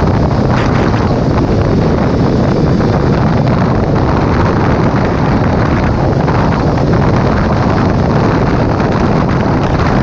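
Steady wind rushing over the microphone of a sport motorcycle at highway speed, with the bike's engine and road noise underneath.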